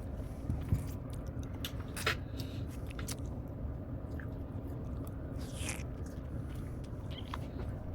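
Close-up mouth sounds of someone eating cake: chewing with scattered small wet clicks and smacks, a few louder ones about two, three and five and a half seconds in.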